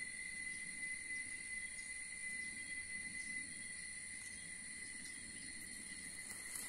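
Insects trilling steadily in the vegetation, a continuous high-pitched tone that does not let up.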